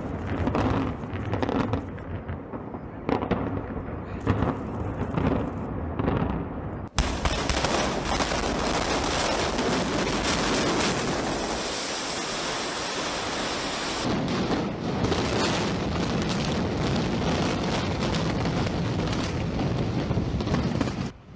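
Building implosion: a rapid series of sharp cracks from demolition charges. After a sudden cut comes a long, steady rumble and hiss of the structure collapsing and debris and dust coming down.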